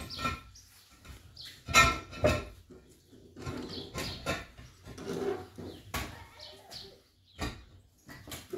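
Concrete blocks knocking and scraping as they are set into a wall by hand. There are several sharp knocks, the loudest about two seconds in and another about six seconds in.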